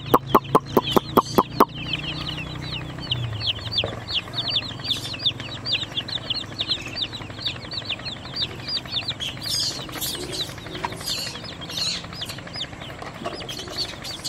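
A flock of baby chicks peeping continuously, a dense stream of high, short, falling peeps. In the first second and a half there is also a quick run of sharp clicks, about five a second, the loudest sound.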